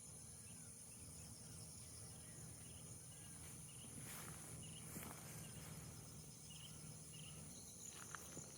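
Faint outdoor ambience: insects chirring steadily at a high pitch, with small repeating chirps and a low steady hum underneath. A couple of faint clicks come about four and five seconds in.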